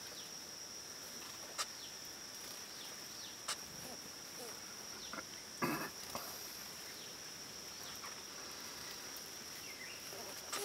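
A steady high-pitched insect drone, with a few faint short falling bird chirps, occasional sharp ticks and a brief rustle a little past halfway.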